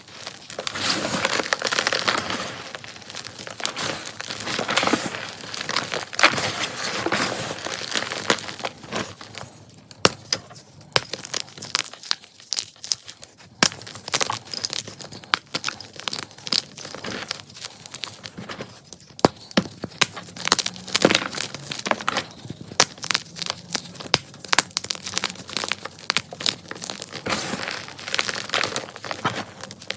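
Blocks of Ader gym chalk being crushed and crumbled by hand, dense crunching for the first ten seconds or so, then sparser sharp crackles and snaps with denser crunching again near the end.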